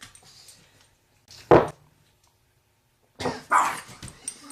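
A dog barking in short bursts, once about a third of the way in and again in a longer run near the end, startled into barking by its owner's fart.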